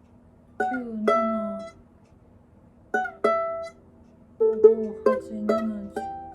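Ukulele strummed in separate chords: two strums about a second in, two more near the middle, then a quicker run of strums near the end, each chord ringing briefly before a pause.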